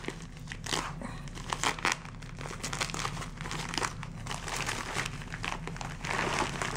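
Plastic packaging crinkling and rustling as a hand rummages in a white mailer bag and pulls out silver pieces sealed in small plastic bags. There are irregular crackles throughout, and the crinkling grows louder about six seconds in.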